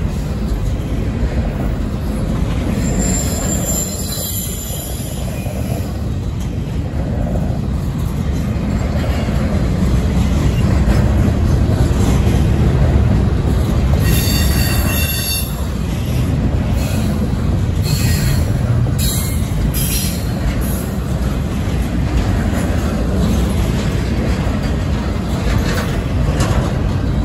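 Container-laden intermodal well cars of a freight train rolling past with a steady rumble of steel wheels on rail. A short high squeal from the wheels comes about three seconds in, and a louder one about halfway through, with a few brief squeaks after it.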